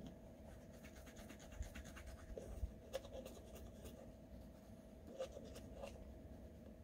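Faint scratchy scrubbing of a toothbrush on teeth, in quick short strokes, with a few sharper clicks and a low rumble underneath.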